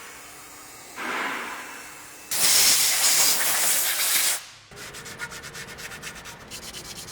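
Hand-scrubbing and sanding rust off the steering knuckle's hub mounting surface, with quick rhythmic rubbing strokes. About two seconds in comes a loud steady hiss that cuts off sharply after about two seconds, then the rubbing strokes resume.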